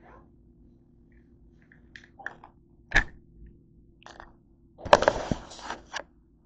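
Handling noise from the camera being moved: a few light clicks, then a sharp knock, then about a second of scraping and rustling.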